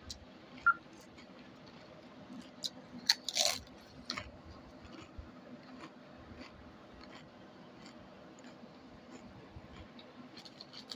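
Crunchy ghost pepper chips being bitten and chewed: scattered crunches and crackles, loudest about three seconds in, over a low steady hum. A short beep sounds under a second in.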